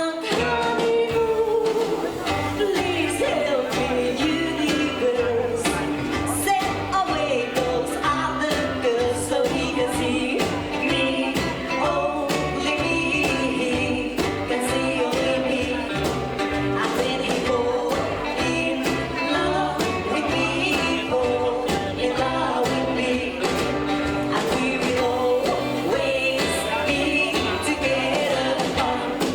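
Live rockabilly band playing a song with a walking bass line and a steady drum beat, with singing over it.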